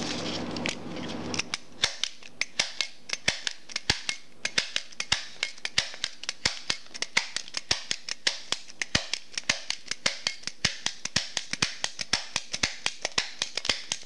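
MAX HD-10FL twin-lever mini stapler stapling again and again through a 20-sheet stack, each stroke a sharp snap. The snaps come quickly, about three to four a second, starting about a second and a half in.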